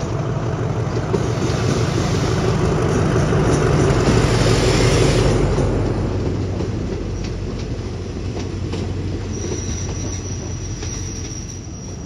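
Alsthom diesel-electric locomotive hauling a passenger train past at low speed. Its engine and wheel noise are loudest about four to five seconds in as it passes closest, then the coaches roll by with light wheel clicks over the rail joints. A thin, steady, high wheel squeal comes in near the end.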